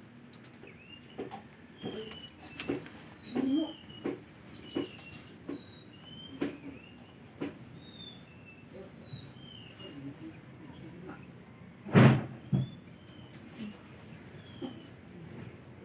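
Birds chirping with many short, high calls, with scattered clicks and knocks; one louder thump about twelve seconds in.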